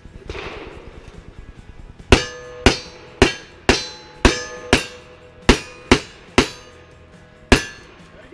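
Ten pistol shots at a quick, steady pace over about five seconds, each with a short ringing tail: a cowboy action shooter emptying his single-action revolvers at steel targets down range. There is a longer pause before the last shot.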